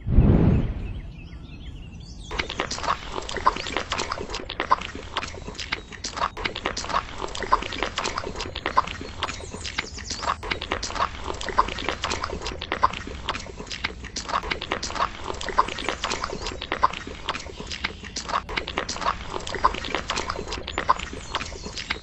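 A small steel trowel working wet concrete in a shallow tray: a quick, irregular run of wet slapping and scraping strokes as the mix is spread and smoothed. A heavy thud right at the start, before the strokes begin.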